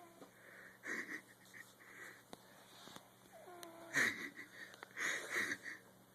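A sleeping man snoring, the snores carrying a wavering pitched tone; the loudest comes about four seconds in, with another about a second later.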